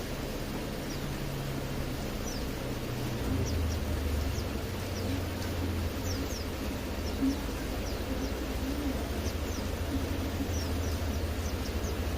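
Small birds giving short, high chirps again and again over a steady hiss of rain, with a low hum underneath that grows louder about three seconds in.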